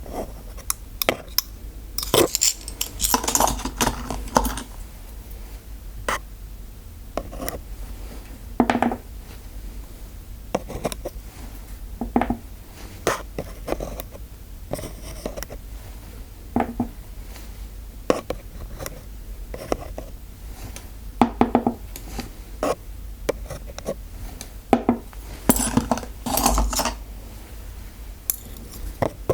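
Metal dental instruments clinking and tapping in irregular single clicks with short ringing, with two denser flurries of clinking and scratching, a couple of seconds in and near the end.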